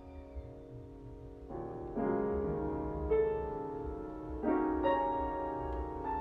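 Solo piano improvising slowly: held notes ring and fade, with new chords and single notes struck several times from about a second and a half in.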